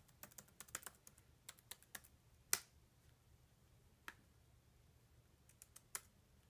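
Typing on a 2014 MacBook Pro Retina's keyboard: faint, irregular key clicks in short runs, with the loudest click about two and a half seconds in.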